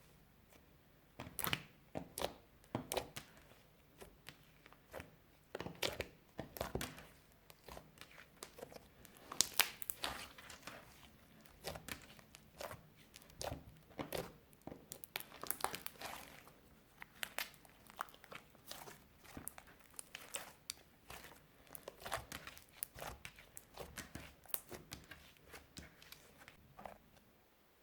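Hands squishing, stretching and folding clear slime mixed with eyeshadow, giving irregular sticky crackles and small air-bubble pops, some single and some in quick clusters.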